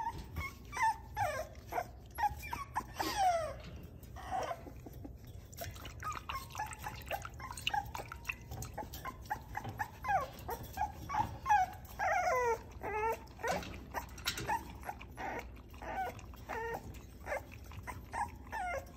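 American Bully puppies yelping and whining in many short, mostly falling calls that sometimes overlap as they squabble, with scattered clicks and taps between the calls.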